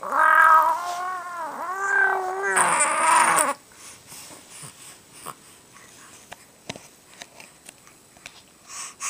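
A baby vocalising in one long, high, wavering squeal-like cry that bends up and down in pitch for about three and a half seconds. After that, only faint scattered clicks and taps.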